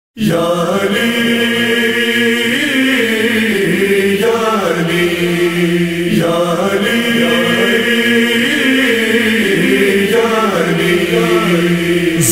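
Chorus of male voices chanting a slow, held melody as the opening of a noha, the phrase repeating about every six seconds.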